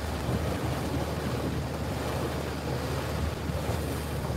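Boat under way on open water: a steady low engine drone with wind buffeting the microphone.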